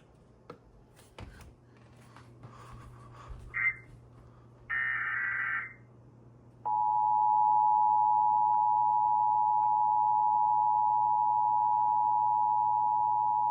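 Emergency Alert System attention signal: the steady two-tone alert (853 and 960 Hz together) comes on loudly about seven seconds in and holds. It is preceded about five seconds in by a one-second burst of warbling digital data tones, the EAS header.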